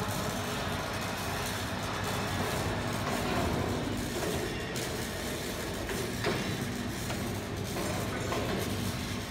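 Electric drive motor and gearing of a 1-ton welding positioner running steadily with a low hum.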